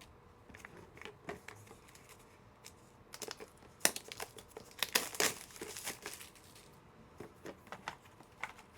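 Plastic crinkling and rustling with sharp light clicks as packaged trading cards and hard plastic graded-card slabs are handled. The busiest stretch of crinkling comes in the middle.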